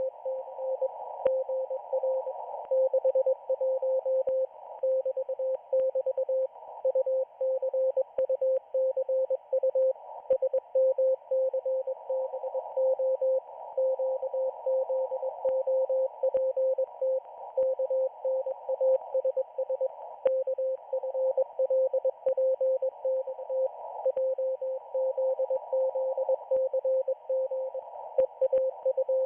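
Morse code from the Israeli Navy station 4XZ received on a shortwave radio: a single mid-pitched beep keyed on and off in quick dots and dashes over a band of receiver hiss, with a few faint static clicks.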